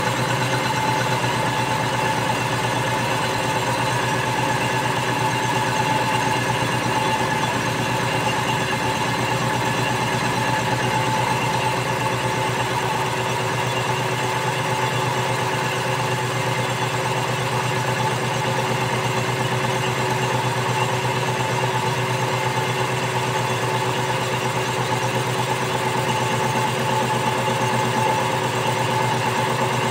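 A machine running steadily: an even mechanical hum with several constant tones that do not change throughout.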